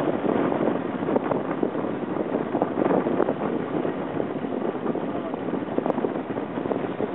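Boat underway while trolling: a steady rush of engine and water noise, with wind buffeting the microphone.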